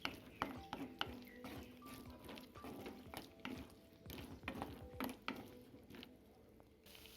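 Spoon scraping and knocking against a metal kerahi as yam pieces are stirred into masala, in irregular clinks and scrapes that thin out near the end.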